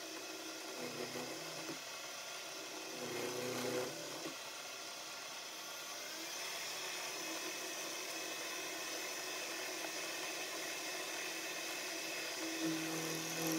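Milling machine spindle running with an end mill plunge-cutting a notch into a 10 mm shaft: a steady high whir, louder for a moment about three seconds in as the cutter bites.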